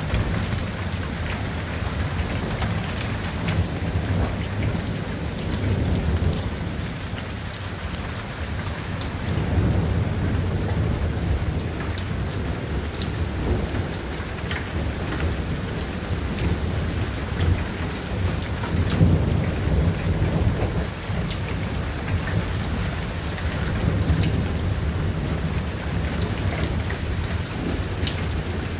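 Thunderstorm: steady heavy rain falling on surfaces with drops ticking, under a continuous low rolling thunder that swells several times.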